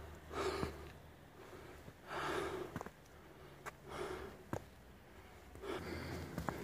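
A hiker breathing hard from the climb: four heavy breaths about two seconds apart, with faint footstep clicks on the rock trail between them.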